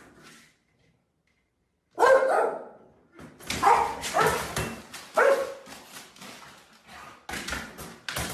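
A dog barking, a run of short barks starting about two seconds in after a quiet moment.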